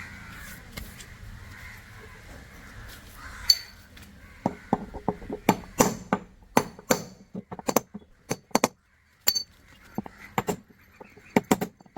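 A 6204 ball bearing being knocked into its seat on a washing machine's steel drum: a string of sharp metallic strikes, irregular at about two a second, starting about four seconds in.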